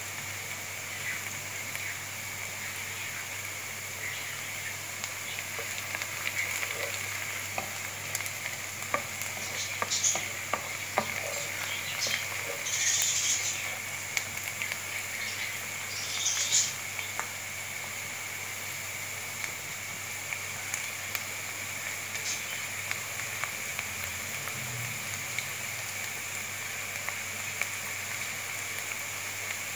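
Sliced onions sizzling steadily as they fry in hot oil in a pan, browning, with a few short louder bursts of sizzle near the middle.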